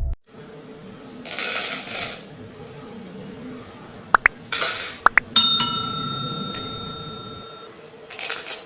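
A piece of metal struck once about five seconds in, ringing clearly and fading over about two seconds, among three short scraping or rustling noises.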